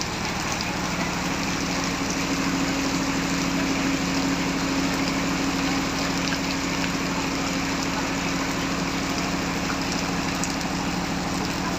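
Heavy rain falling steadily, with an engine running at an even, steady pitch that comes in about a second in.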